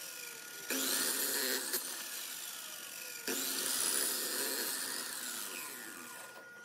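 Electric sliding mitre saw cutting through a round wooden rod twice, once about a second in and again about three seconds in. After each cut the blade's whine falls away slowly as the motor spins down.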